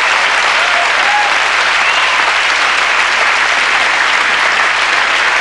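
Live audience applauding: dense, steady clapping at the end of a song.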